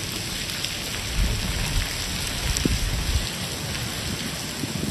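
Heavy rain falling steadily and splashing on wet stone paving, with scattered sharper drop hits. A low rumble swells in about a second in and fades after about two seconds.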